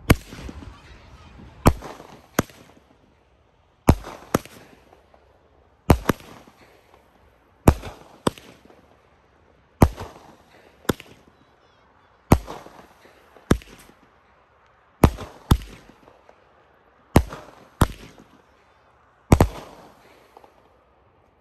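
Consumer firework cake, the 'Addicted to Willows' willow cake, firing its shots one after another: about seventeen sharp bangs, many in close pairs, roughly one every second or so, each trailing off in a fading hiss. The last bang comes near the end.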